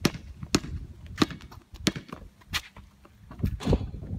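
Basketball dribbled on a concrete driveway: five sharp bounces, evenly spaced about two-thirds of a second apart, then a few quieter knocks near the end.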